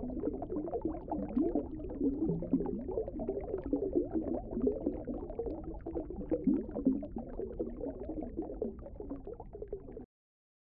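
Underwater bubbling sound effect: a dense stream of muffled, low bubble blips that stops suddenly near the end.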